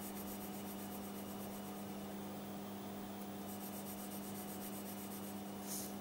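Quiet room tone: a steady low electrical hum over faint hiss, with a brief soft scratch near the end.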